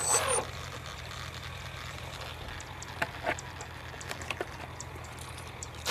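Nose-mounted electric motor of an RC bird-shaped glider briefly spinning its propeller and winding down, falling in pitch. This is followed by a low steady hum and a few faint ticks.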